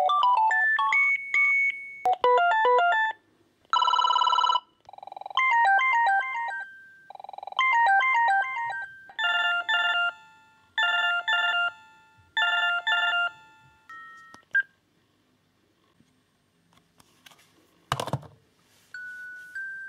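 Philips B141 DECT cordless phone handset playing a string of short electronic ringtone melodies, one after another, each cut off after a second or two as the ringtones are browsed. Near the end there is a sharp knock as the handset is set down in its base, then a short steady beep.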